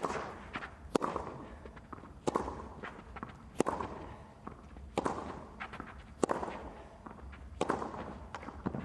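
Tennis baseline rally on clay: about seven sharp racket-on-ball hits a little over a second apart, with lighter footsteps between them.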